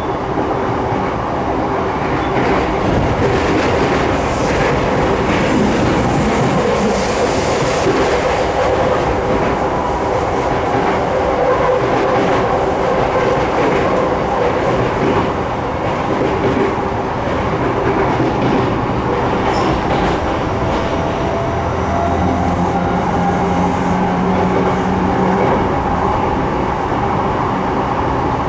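Sotetsu 12000 series electric train running at speed, heard from inside the car: steady rolling noise and motor hum, with the wheels clicking over rail joints. A hiss rises for a few seconds near the start.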